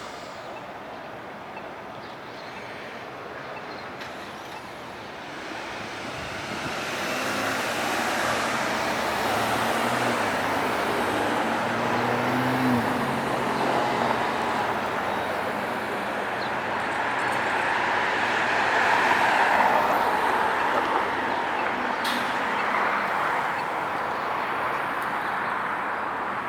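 Road traffic passing on a city street: the hiss of tyres and engines swells as vehicles go by, with one vehicle's engine hum standing out near the middle and a second swell a little later.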